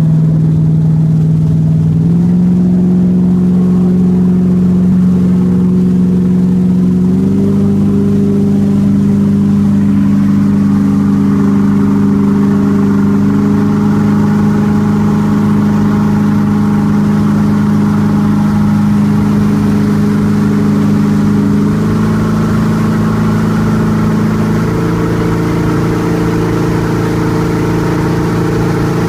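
Motorboat engine running at towing speed, its pitch stepping up twice early on as the throttle is opened, then settling lower and shifting again near the end, over the steady rush of the boat's wake.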